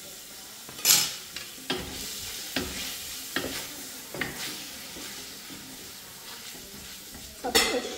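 Fish and seafood sizzling in hot oil and garlic in a frying pan while being stirred, a utensil knocking and scraping against the pan about six times, loudest about a second in and again near the end.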